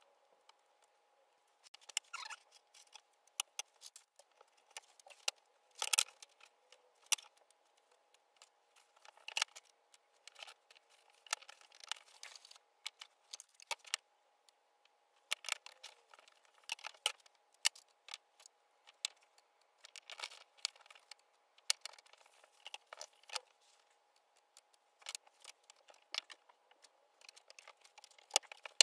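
Pine strips and dominoes being fitted together and set down on a plywood tabletop, played back sped up: quick, irregular light wooden clicks and knocks, with a faint steady tone underneath.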